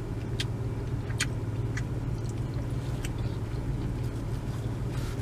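Steady low hum of a parked car with its engine idling, under a few scattered small clicks and rustles from handling and eating seafood-boil food.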